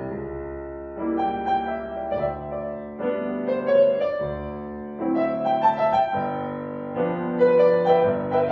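Solo piano music, slow chords struck about once a second and left to ring.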